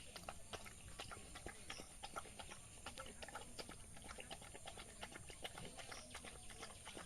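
A dog eating rice: quick, irregular wet smacking and chewing clicks, several a second, fairly faint.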